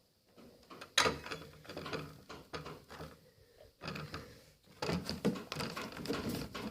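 Olive oil being poured into a small syrup bottle, with irregular clicks and knocks of the bottle and oil container being handled, starting about a second in and coming more often near the end.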